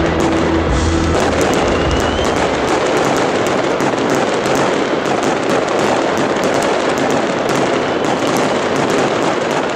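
Aerial fireworks shells bursting in a dense, continuous crackling and popping.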